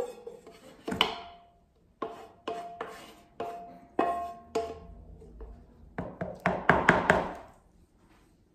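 Wooden spatula knocking and scraping against a bowl while the fried onion and carrot mixture is tapped out into a mixing bowl. About a dozen sharp knocks, each ringing briefly, with a quicker flurry of knocks about six seconds in.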